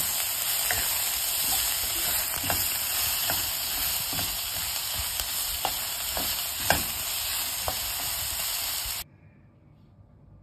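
Chopped onions, green chillies and shallot leaves sizzling as they are tempered in oil in a non-stick frying pan, with a spatula stirring and now and then tapping and scraping on the pan. The sizzling cuts off suddenly near the end.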